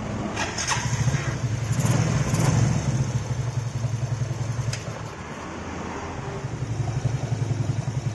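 Suzuki Shogun motorcycle engine started and running with a low, even pulse, rising in level twice, as a test after its electric starter motor's dry armature bushing was greased to cure a coughing noise from the starter.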